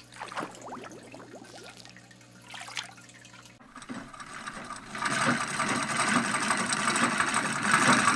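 Fish-tank water trickling over a low steady hum. About four seconds in, a treadle sewing machine starts running and gets much louder a second later.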